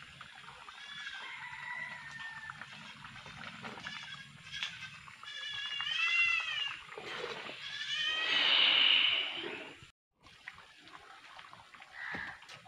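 A farm animal calling several times in wavering, pitched calls, the loudest about eight seconds in; the sound drops out for a moment about ten seconds in.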